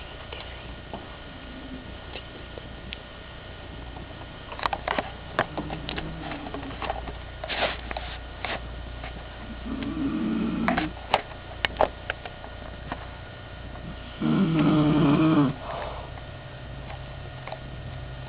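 Elderly woman snoring in her sleep: a few separate snores, a faint one about ten seconds in and a louder, longer one near the end. Scattered clicks and a steady low hum run underneath.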